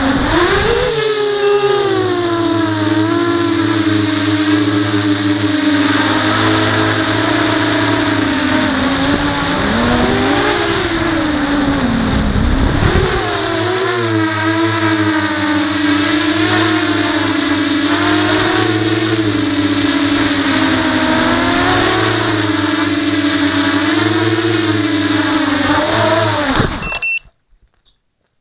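Brushless motors and 5-inch propellers of an FPV quadcopter (Brotherhobby Returner R5 motors, HQProp props), heard through its onboard GoPro: a loud whine whose pitch rises and falls with the throttle and dips low for a few seconds around the middle. It cuts off suddenly near the end as the quad lands and the motors stop.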